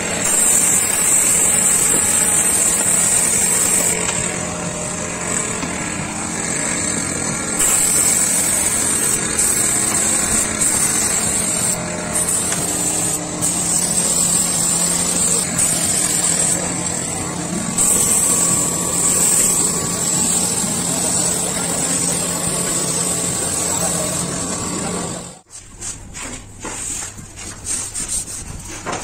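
Compressed-air spray gun hissing as it sprays paint onto a wooden panel over a steady low hum, the hiss easing off now and then for a few seconds. About 25 seconds in it cuts off abruptly to quieter rubbing as a painted panel is smoothed by hand.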